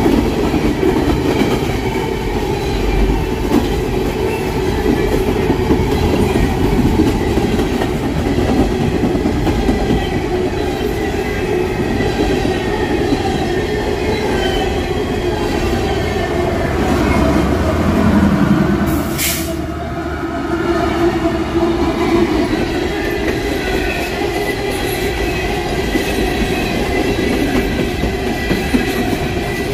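CSX freight train of open-top hopper cars rolling past close by: a steady loud rumble and rattle of steel wheels on rail. About nineteen seconds in there is a short, sharp high-pitched burst.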